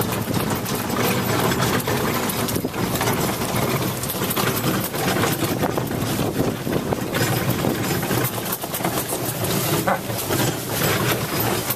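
Engine of a small vehicle running steadily as it drives slowly over dirt ground.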